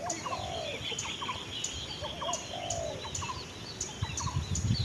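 Spotted doves cooing: two low, rolling coo phrases a couple of seconds apart, with small birds chirping in the background.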